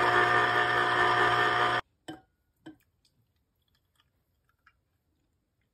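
Juiceman electric citrus juicer's motor running with a steady hum as an orange half is pressed on the reamer, cutting off suddenly about two seconds in. Then two short knocks and a few faint clicks follow.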